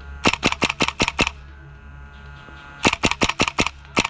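GHK AK-74 gas blowback airsoft rifle, fed from an HPA-tapped magazine, firing shots in quick succession, each a sharp crack-and-clack of the blowback bolt. There are two strings of about six shots at about five a second, and another shot starts near the end.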